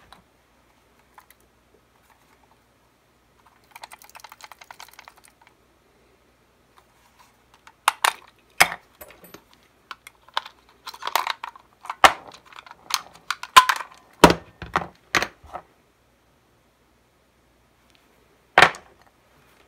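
Sharp plastic-and-metal clicks and clatter as a screwdriver pries AAA batteries out of a Nerf Recon tactical light's battery compartment. A quick run of faint rattling comes first, then a busy run of a dozen or so sharp clicks, and one last click near the end.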